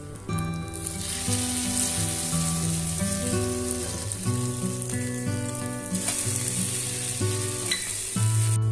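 Bread slices filled with egg and tuna sizzling as they fry in a hot pan.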